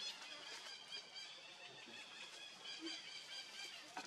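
A baby monkey crying in short, high-pitched squeaks, repeated over and over.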